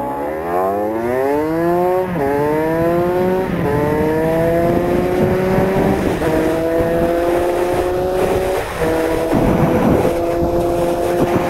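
Small motorcycle engine pulling away under throttle. Its pitch climbs, then drops sharply at each upshift, three times in the first six seconds, then holds a steady cruise with a brief throttle dip near the end.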